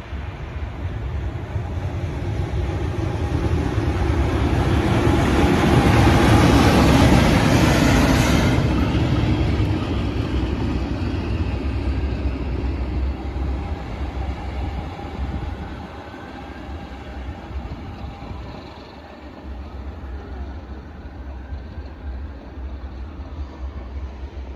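Class 37 diesel-electric locomotive 37422 running as a light engine, its English Electric V12 diesel engine and wheels on the rails getting louder as it approaches, passing close by about eight seconds in, then fading as it draws away.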